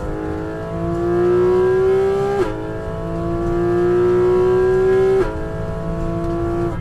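Porsche 718 Cayman GT4 RS's naturally aspirated 4.0-litre flat-six pulling hard under full acceleration. Its note rises steadily through each gear, and two quick upshifts of the PDK gearbox, about 2.5 and 5 seconds in, each drop the pitch suddenly before it climbs again.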